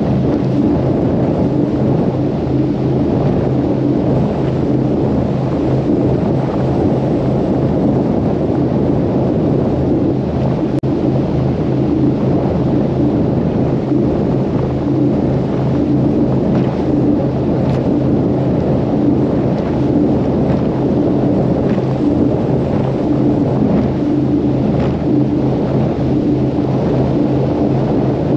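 Powerboat running at speed on open water: a steady low engine drone with the rush of wind and water, no let-up in pace.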